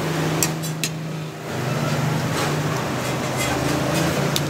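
A few sharp clinks of a metal spoon and fork on a plate, three in quick succession about half a second in and one more near the end, over a steady low hum.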